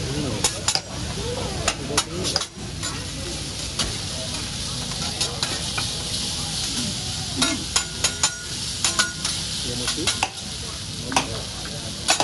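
Chopped vegetables sizzling on a hot steel teppanyaki griddle, a steady hiss, with frequent sharp metallic clacks of hibachi spatulas striking and scraping the griddle as the vegetables are tossed.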